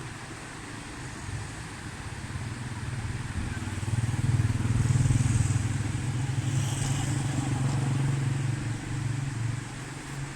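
A motor vehicle's engine on the road, a low hum that grows louder about four seconds in and fades again near the end, as it passes.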